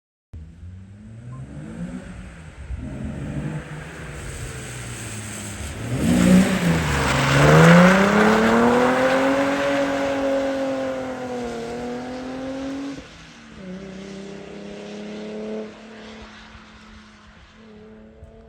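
BMW E36 2.8's straight-six engine revving hard as the car drives by: the note climbs from about two seconds in, dips and sweeps back up at its loudest around six to eight seconds, holds high, then drops sharply about thirteen seconds in and runs on more quietly to the end.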